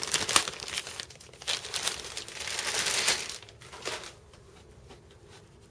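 Thin plastic protective bag crinkling and rustling as a laptop is pulled out of it, a run of crackles for about three seconds that then thins to a few faint rustles.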